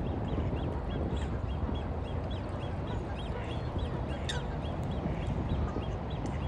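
Water birds calling: short, high notes repeated about twice a second, with one falling call about four seconds in, over a steady low rumble.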